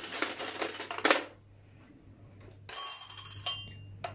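Metal teaspoons clattering for about a second, then a teaspoon set into a glass tea mug, giving bright ringing clinks.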